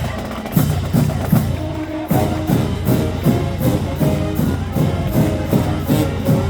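Marching band playing: a drumline keeps a steady beat of about three strokes a second, and held band notes come in about two seconds in.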